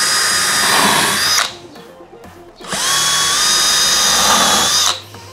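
Green Bosch cordless drill running at a steady speed as it drills holes through a template into a chipboard backing board. It stops about one and a half seconds in, then runs again for about two seconds and stops near the end.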